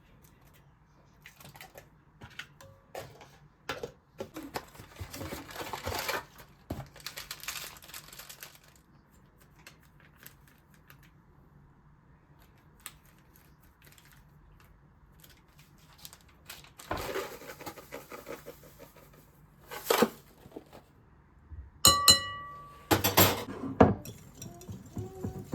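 Kitchen handling sounds: scattered clicks and clinks of dishes and utensils, with stretches of rustling. Near the end a sharp clink rings briefly.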